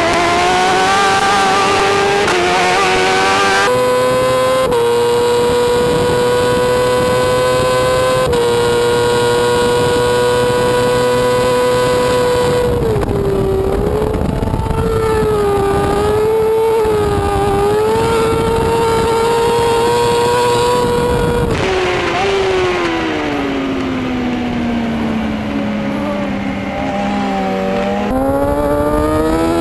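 Onboard sound of a 600cc racing motorcycle engine (Brough Superior Carbon 2 Moto2 prototype) at high revs under rushing wind. The pitch climbs early on and holds high and steady, then wavers. In the last third it winds steadily down as the bike slows, and it picks up again near the end.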